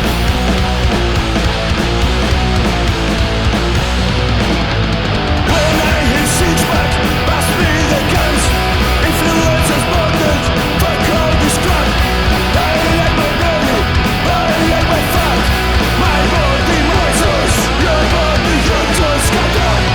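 Studio recording of a punk rock band playing: electric guitars, bass and drums. About five seconds in the band gets fuller and brighter, with crashing cymbals on top.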